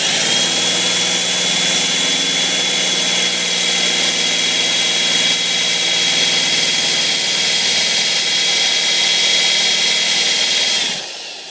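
Electric drill running steadily at speed with a constant high whine, drilling a hole into a bicycle seat post; it winds down and fades near the end.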